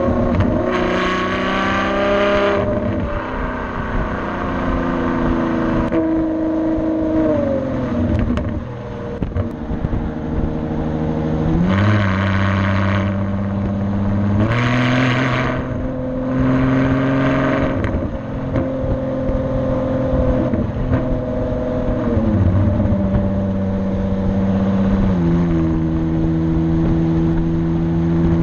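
Ferrari FF's V12 running through a Tubi Style exhaust while driving. The note holds steady pitches that step and glide up and down several times, with a few short, louder, brighter stretches under harder throttle.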